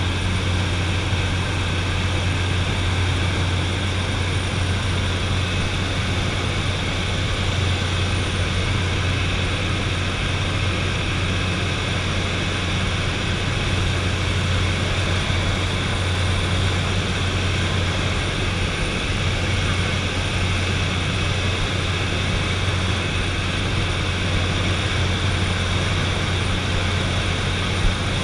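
De Havilland DHC-3 Otter turboprop's engine and propeller droning steadily in flight, heard inside the cabin: a strong low hum under an even rushing hiss.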